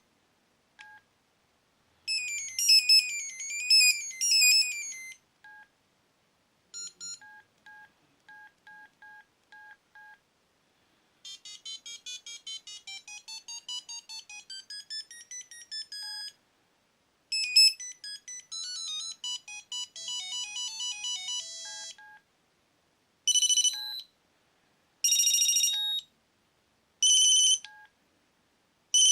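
Sony Ericsson T68i mobile phone playing its preloaded ringtones one after another: a fast warbling trill, a run of short single beeps, two electronic tunes, then a bright ring repeated four times in bursts of about a second.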